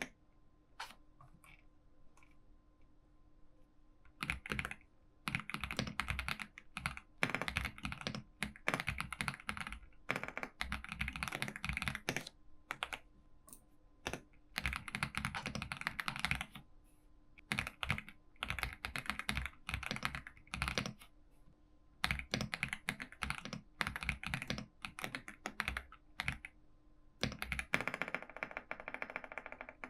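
Typing on a computer keyboard in runs of quick key clicks, each a second or few long, broken by short pauses, over a faint steady hum.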